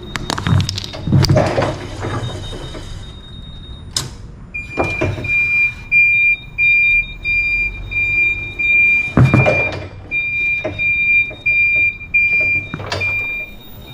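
Small plastic toys cracking and crunching under a forklift's solid rubber tyre, with sharp crunches near the start and again several times later. From about four seconds in, the forklift's high warning beeper sounds about twice a second over the low hum of the machine.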